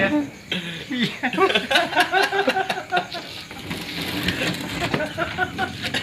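Laughter: a quick run of short, repeated bursts for about three seconds, then quieter.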